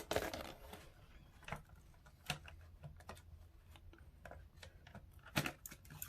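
Scattered small plastic clicks and taps from handling a Logitech wireless keyboard's opened housing and parts, with a short cluster of clicks near the end, over a faint low hum.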